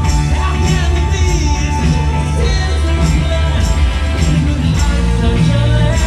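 Rock band playing live: keyboards over drums, bass and guitar, with a steady beat of cymbal strikes about twice a second and some singing.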